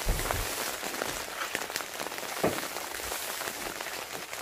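Steady rain falling on a tarpaulin shelter, with scattered small clicks and a few knocks, the loudest about two and a half seconds in.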